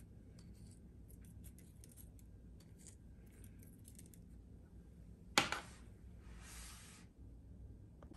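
Salt and pepper sprinkled by hand over raw pork belly slices in a tray: faint scattered ticks of grains landing. About five seconds in comes one sharp click, followed by a brief rustle.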